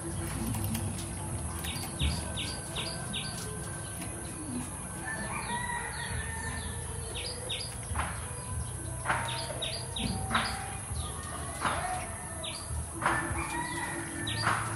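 Birds calling outdoors: short high chirps come in quick runs of three or four, with a few louder, harsher calls in the second half.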